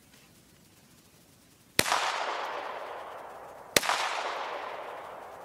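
Two handgun shots about two seconds apart, each a sharp crack followed by an echo that fades over about two seconds.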